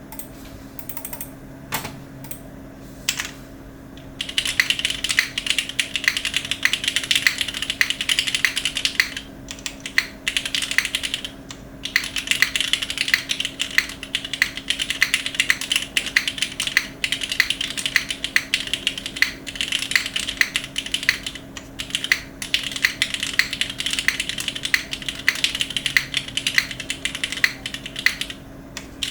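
Typing on a plateless NEO80 CU mechanical keyboard with vintage black linear switches and GMK keycaps. A couple of single keystrokes come first, then fast, continuous typing from about four seconds in, broken by a few short pauses.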